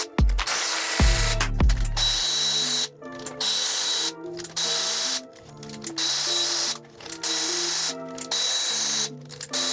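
Power tool running in repeated bursts of about a second each, with short pauses between them and a steady high whine in every burst, as bolts are run out during an engine teardown.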